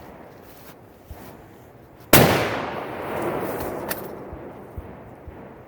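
A single bolt-action rifle shot about two seconds in, loud with a long echoing tail, followed about two seconds later by a sharp click.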